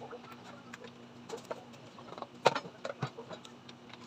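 Saluyot (jute mallow) leaves being picked off their stems by hand: a run of small snaps and clicks, with one sharper click about two and a half seconds in.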